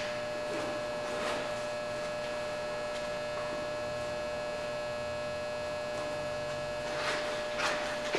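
Steady electrical hum with a constant high tone. Two short, soft rustles come about seven seconds in.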